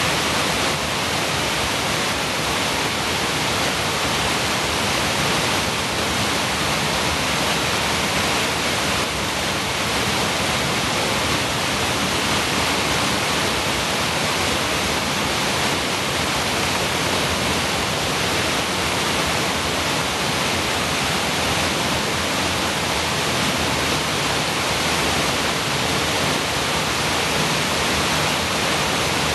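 A creek waterfall pouring over rocks and fallen logs: a steady, unbroken rush of white water.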